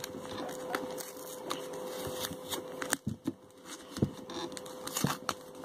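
Fingers handling and peeling layers of a homemade paper package: faint paper rustling with scattered small crackles and taps, over a thin steady hum.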